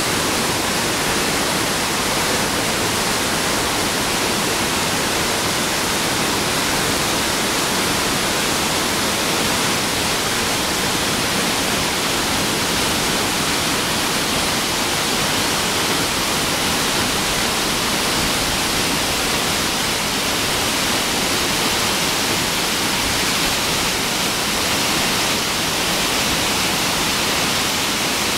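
Mountain stream rushing steadily, running high and full after recent heavy rain.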